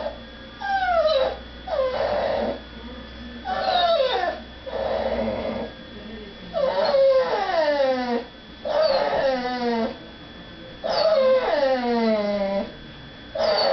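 A dog whining and crying in a run of about eight drawn-out wails, each sliding down in pitch. She is crying to be let go to where people are eating.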